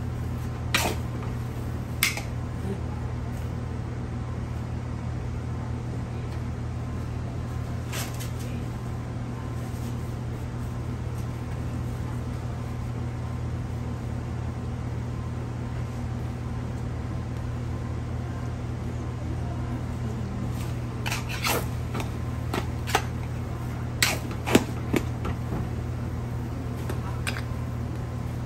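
Steady low hum of a commercial kitchen, with a few sharp knocks of a cooking utensil against a large wok as rice noodles are tossed, several of them close together near the end.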